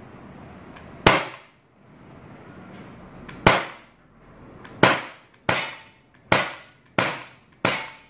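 CO2-powered Glock 17 4.5 mm air pistol firing seven shots, each a sharp crack that dies away quickly. The first two come a couple of seconds apart, then five follow in quick succession about two-thirds of a second apart.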